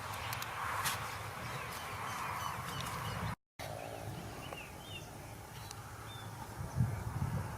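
Small birds chirping in short, scattered calls over a steady outdoor hiss, with a few clicks and rustles early on and some low thumps near the end. The sound drops out completely for a moment about a third of the way in.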